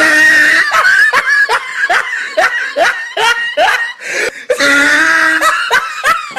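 A person laughing loudly as a comedy sound effect: a drawn-out high cry, then a run of short 'ha' pulses about three a second, then another drawn-out cry and a few more pulses near the end.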